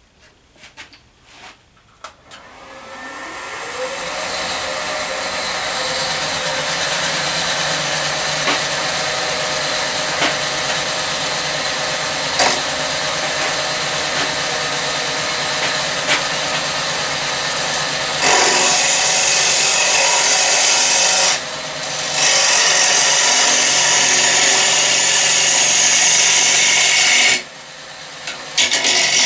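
Robust wood lathe spinning up over a couple of seconds, then running steadily with a rough-turned bowl mounted. About eighteen seconds in, a gouge starts cutting, a loud hiss of shavings coming off as the tenon is trued up and the outside shaped. The cut stops briefly twice near the end.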